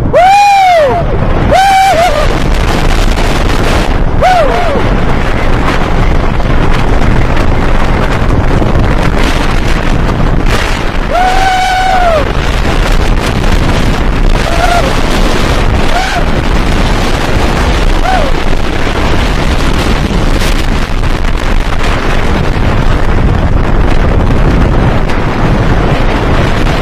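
Wooden roller coaster train running at speed down the drop and through the track: heavy wind buffeting the microphone over the rumble and clatter of the wheels on the wooden track. Riders scream loudly as it drops at the start and again about eleven seconds in, with shorter shrieks between.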